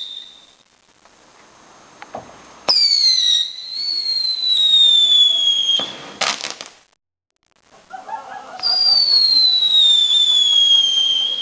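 Whistling fireworks: twice a high whistle starts suddenly and slides slowly down in pitch for about three seconds. A short burst of crackling comes about six seconds in.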